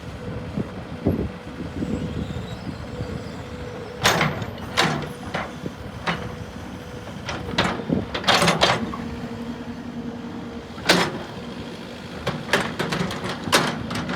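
Cat 308E2 CR hydraulic mini excavator running, its diesel engine and hydraulics making a steady hum with a held whine, and a second lower whine joining about nine seconds in. Sharp metallic clanks and knocks come at irregular intervals over it, the loudest near four, eight and eleven seconds in.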